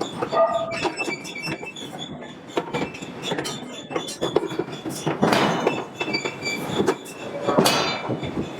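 Clanking and squealing of steel being worked in a forge shop: many sharp metallic knocks with thin high squeals, and two louder rushing surges about five and seven and a half seconds in.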